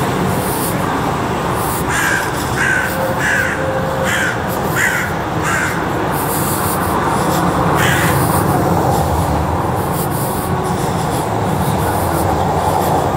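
A crow cawing, about six calls in a quick even series and then one more a couple of seconds later, over a steady background rumble.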